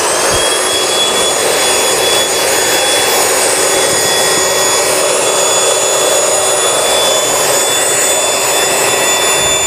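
The air bed's own corded electric air pump runs steadily with a high-pitched whine and a rush of air as it inflates the air mattress.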